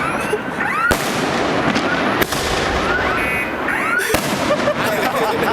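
A large Chinese fireworks cake firing: dense, continuous crackling broken by three loud bangs, about a second in, past two seconds and about four seconds in. Car alarms set off by the blasts wail and beep underneath, in short rising-and-falling sweeps and a brief run of beeps.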